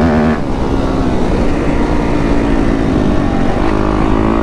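2015 Yamaha YZ250F's 250 cc four-stroke single-cylinder engine running under load while ridden, its pitch rising and falling with the throttle. It dips briefly about a third of a second in and again near three seconds, then climbs.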